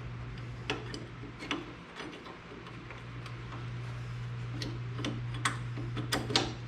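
Irregular light metal clicks and clinks as a steel brake pedal piece and its pivot pin are handled and fitted together, over a steady low hum.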